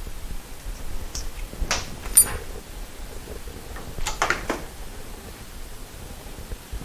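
A few sharp clicks and clinks of metal parts and hand tools being handled, one with a short metallic ring about two seconds in and a quick cluster of clicks about four seconds in, over a steady low hiss.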